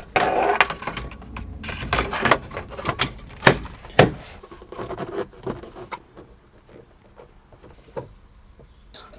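Plastic steering column cover being handled and fitted, with a string of sharp clicks, knocks and rustling that thin out after about six seconds.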